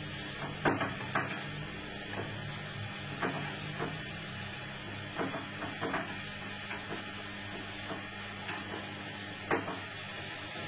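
Food frying in a pan with a steady sizzle while a utensil stirs it, knocking and scraping against the pan at irregular moments, roughly once a second.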